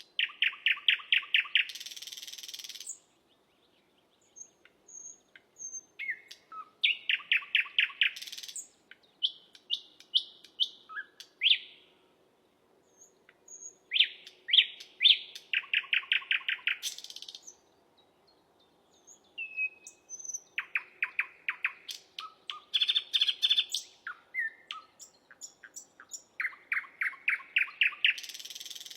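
A bird singing in repeated phrases of fast, evenly repeated notes, several of them ending in a harsh hiss, with short pauses between phrases.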